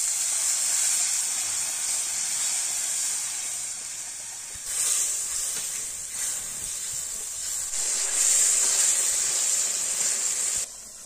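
Hot oil in a steel wok hissing and sizzling hard as a yellow spice liquid is poured in and then stirred with a ladle, sending up steam. The hiss swells twice and cuts off near the end.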